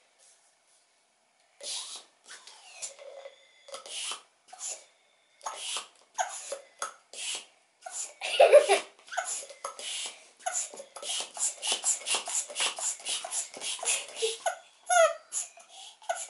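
Mini hand pump for long modelling balloons worked in strokes, each stroke a short puff of air, irregular at first and then quick and even, about four or five a second, from about ten seconds in, as the balloon fills.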